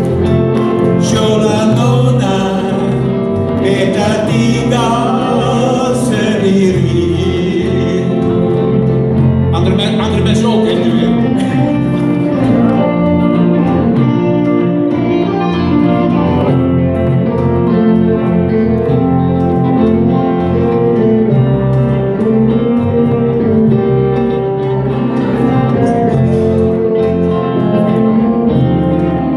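Live band playing: electric bass and electric guitars, with men singing into microphones, the singing most prominent in the first half.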